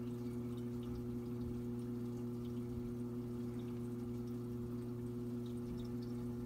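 Saltwater aquarium sump running: a steady low electrical hum of a few even tones, typical of a pump motor, with water trickling and small drips.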